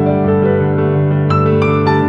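Background piano music: slow, soft piano chords and notes, with a few struck notes standing out.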